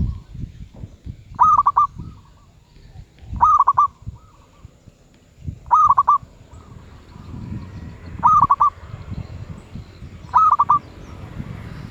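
Zebra dove (merbuk) cooing: five calls about two seconds apart, each a quick run of three or four short rolling coos, over a low rumble.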